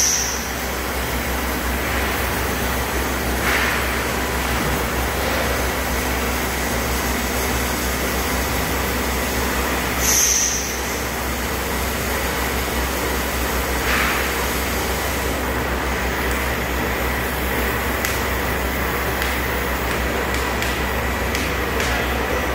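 Hydraulic power pack's electric motor and pump running steadily with a low hum while the pusher's cylinders slowly extend, their speed set by a flow control valve. A brief high hiss comes at the start and again about ten seconds in.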